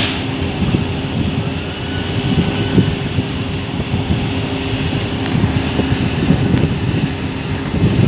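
Bulk cement ship's unloading machinery running: a loud, steady drone with a constant hum over a low rumble.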